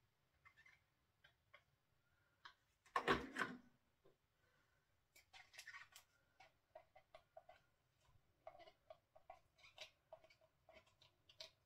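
A spatula scraping and tapping chopped onion and garlic out of a plastic chopper bowl into a plastic container: a string of faint clicks and scrapes, with one louder knock about three seconds in.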